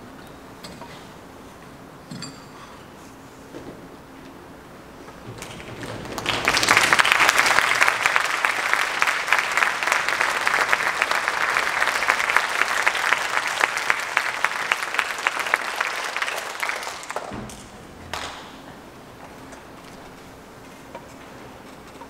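Audience applauding for about eleven seconds, building up about six seconds in and dying away fairly quickly near the three-quarter mark. Before and after, only low hall background with a few faint knocks.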